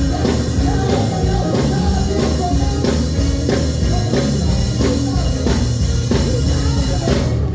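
Loud band music with a steady drum beat, cutting off suddenly at the end.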